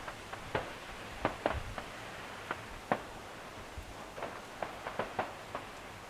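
Distant fireworks going off: irregular sharp pops and crackles, at times several a second, loudest about a second and a half in and again near three seconds, over a steady hiss.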